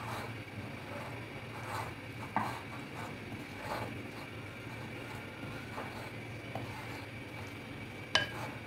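A large spoon stirring and scraping a soft mash of fried grated potato and cornflour in a glass bowl, with a few soft knocks against the bowl and a sharper clink near the end. A faint steady hum lies underneath.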